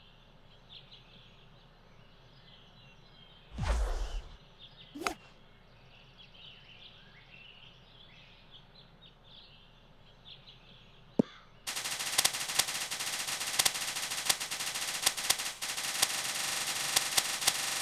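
Faint bird chirps and a sharp click about eleven seconds in. Then a golf flag flaps hard on its flagstick, a loud, dense, rapid crackling rattle that carries on to the end.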